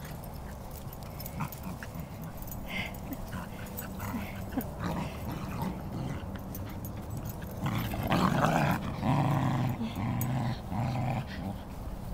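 Cairn terriers play-growling as they wrestle: a run of about four growls, the longest about a second each, starting about two-thirds of the way in.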